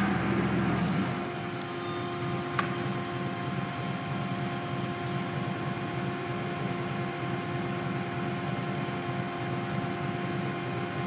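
Steady hydraulic machine hum with a fixed-pitch whine as a coil loading car lifts a steel coil toward the uncoiler mandrel, a little louder for the first second. A single sharp click about two and a half seconds in.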